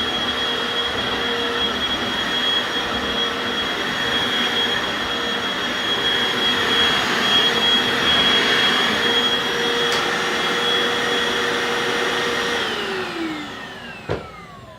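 Hoover FloorMate carpet washer running with a steady whine, then switched off near the end, its motor winding down in falling pitch. A single sharp click comes just before the end.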